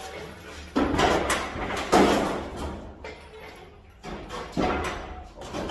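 Steel engine hoist, loaded with a pickup bed, rolling on its casters across a concrete floor. It is pushed in several spurts, each setting in abruptly and then fading, with a lull in the middle.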